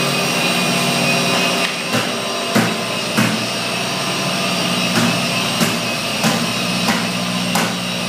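Industrial dust-extraction vacuum running steadily with a motor whine. From about two seconds in, light knocks recur roughly every two-thirds of a second.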